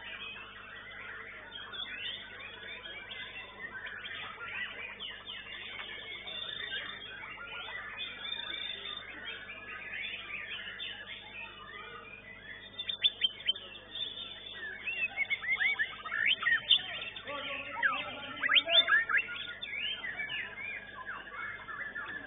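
White-rumped shama (murai batu) singing in a contest cage against a dense, continuous chorus of many other caged songbirds. About halfway in comes a run of loud, sharp, quickly rising whistles and chirps that lasts several seconds.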